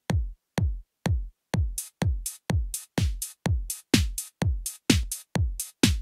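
Roland drum machine playing a steady four-on-the-floor electronic kick drum pattern, about two beats a second, each kick dropping in pitch. Offbeat hi-hats come in about a second and a half in and grow louder.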